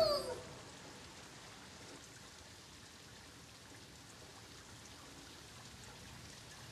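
A falling tone dies away in the first half second, leaving faint, steady rain and rainwater running along a street gutter.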